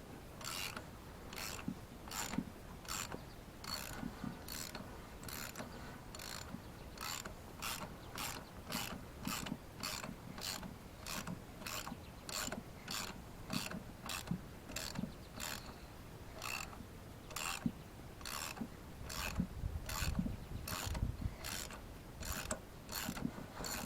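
Socket ratchet wrench being worked back and forth to spin off truck lug nuts, a short burst of ratchet clicking on each return stroke, about one and a half strokes a second. A few dull knocks come in near the end.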